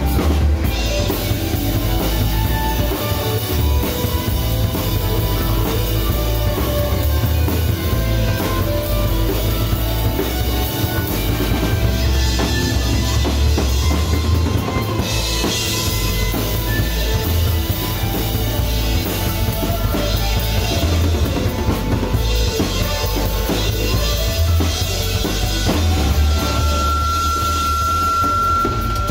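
Live rock band playing an instrumental jam: drum kit with bass drum and snare keeping a steady beat under electric guitar, bass guitar and Hammond keyboard. Near the end a single high note is held for about three seconds.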